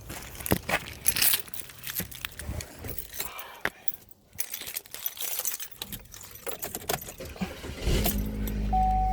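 Car keys jangling and clicking, then about eight seconds in the car's engine starts and settles into a steady idle, with a steady tone coming on shortly after.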